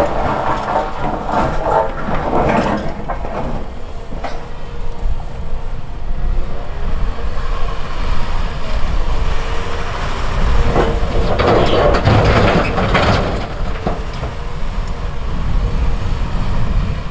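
Cat 340F hydraulic excavator's diesel engine running under load, with the steel bucket scraping and clunking through broken rock near the start. About two-thirds of the way through, a rough crashing burst of rock being dumped into the steel bed of a dump truck.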